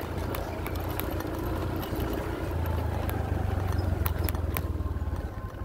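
Low rumble of a vehicle driving along a bumpy dirt road, with scattered sharp clicks and rattles; the rumble eases off near the end.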